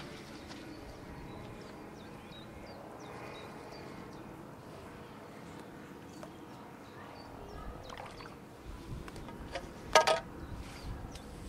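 Quiet lakeside outdoor ambience with faint short high chirps. Low wind rumble on the microphone comes in over the last few seconds, and there is one short sharp sound about ten seconds in.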